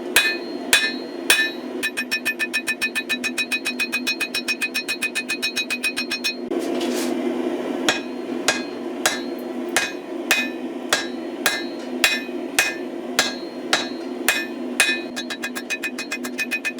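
Hammer blows ringing on a hot Damascus billet over the anvil while the billet is forged. There are quick runs of about six strikes a second and slower strikes about every half second, with a pause of about a second and a half. A steady low rushing noise runs underneath.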